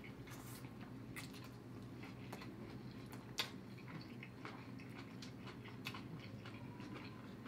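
Two people biting into burritos and chewing: faint wet mouth sounds and small clicks over a low steady hum, with a sharper click about three and a half seconds in.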